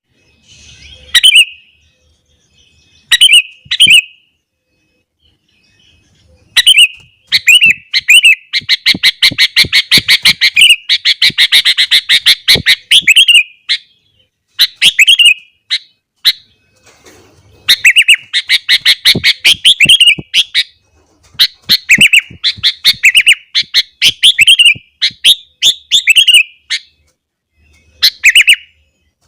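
Sooty-headed bulbul singing loudly in full song: short, bubbly phrases repeated with brief pauses, and a long run of rapid notes about a third of the way in.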